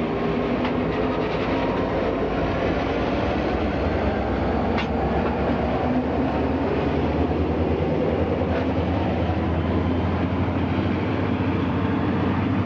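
Diesel-electric helper locomotives pulling away under power, their engines running with a steady low drone. There are a few faint clicks, about one every four seconds.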